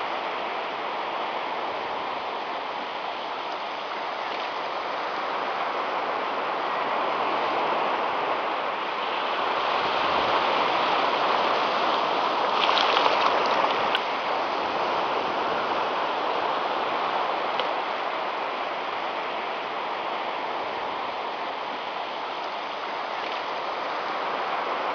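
Small waves breaking and washing up a sandy beach: a steady rush that swells and eases, loudest about halfway through.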